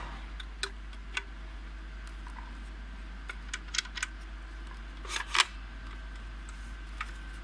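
Handling sounds from unpacking a cordless circular saw: a scattering of short, sharp clicks and knocks, with a louder cluster about five seconds in.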